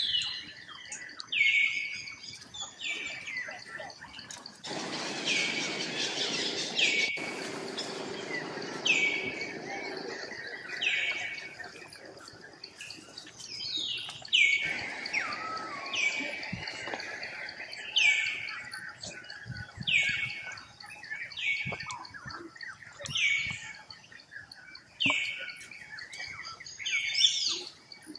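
An animal calling over and over: short, high calls, each falling sharply in pitch, about one a second, over a steady high whine, with a stretch of rustling noise a few seconds in.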